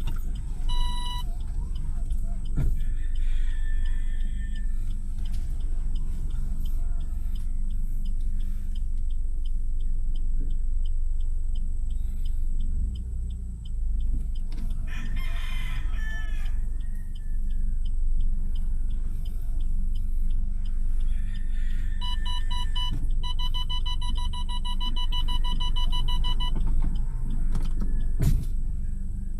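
Roosters crowing several times over a steady low rumble, with one long drawn-out crow late on.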